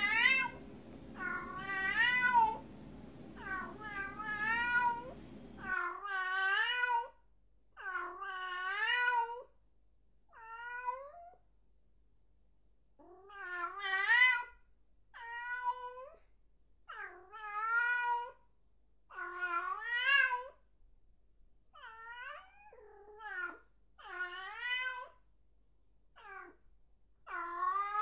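Domestic cat meowing over and over, one drawn-out meow about every two seconds, each rising and then falling in pitch. A low background hum cuts off about six seconds in.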